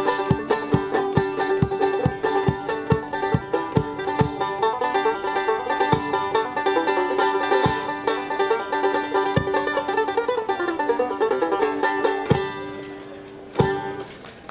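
Banjo picked quickly in an instrumental, with regular low thumps keeping time. It stops on a last ringing note about twelve seconds in, and a single sharp knock follows near the end.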